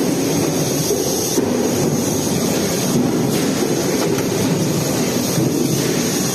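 Steady, loud mechanical rumble and clatter of industrial machinery, running evenly without distinct strikes.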